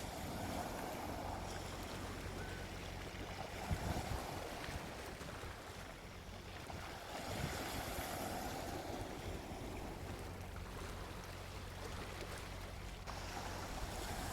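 Gentle sea waves washing onto a beach, the surf swelling and easing every few seconds, with a low rumble of wind on the microphone.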